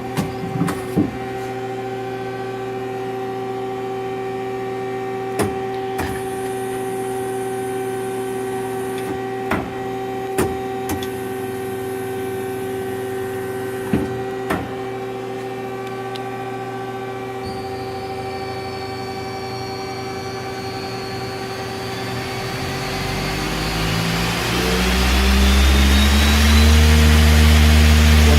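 Mazak QT250 CNC lathe running with a steady electrical and hydraulic hum, broken by several sharp clicks. About two-thirds of the way in a motor starts a rising whine, and it keeps climbing in pitch and grows much louder toward the end as the spindle drive spins up.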